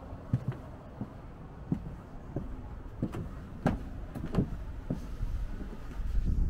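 Footsteps of a person walking at a steady pace, about one and a half steps a second, over a low background rumble that swells near the end.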